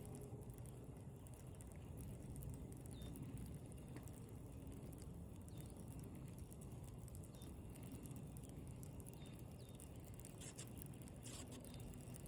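Quiet outdoor ambience: a steady low rumble, with a small bird's short high chirp repeating every second or two and a few light clicks near the end.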